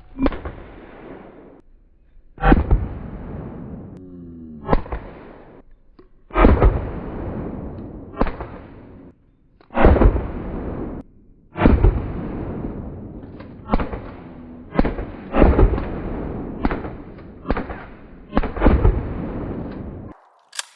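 A firearm fired one shot at a time at a steady pace, about fifteen shots one to two seconds apart, each followed by a long echoing tail.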